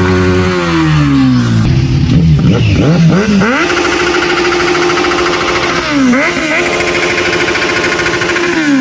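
Yamaha R15's 155 cc single-cylinder engine on its stock exhaust, revving up and then held at steady revs, with a brief dip and climb in pitch about two-thirds of the way through.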